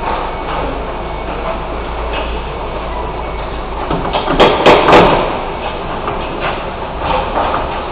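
Steady rumbling background noise with a short burst of three or so loud knocks about four and a half seconds in.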